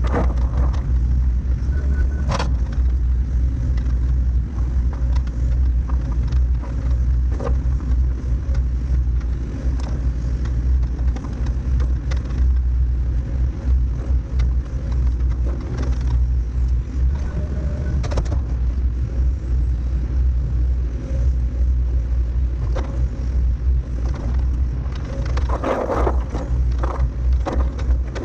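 Diesel engine of heavy earthmoving equipment running steadily under load while grading, with a few brief scrapes and clanks of the machine working the dirt.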